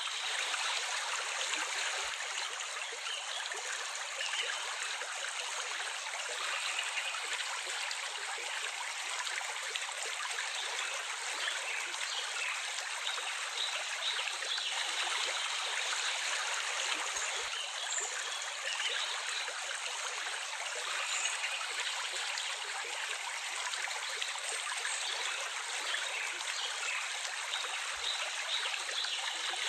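Water of a small stream running steadily, an even, continuous rush without pause.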